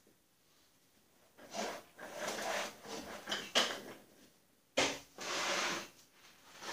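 Scraping and rubbing from about a second and a half in, with small knocks, then a sharp knock about five seconds in followed by a second more of scraping: objects being handled and shifted around a riding lawn mower.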